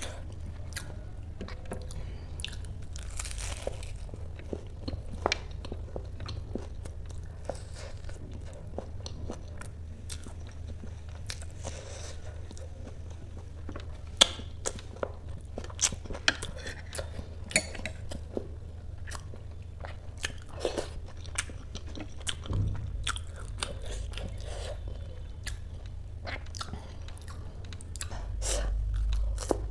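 Close-up eating sounds: crunching and chewing of crisp fried kachori, with many sharp wet mouth clicks and smacks, over a steady low hum.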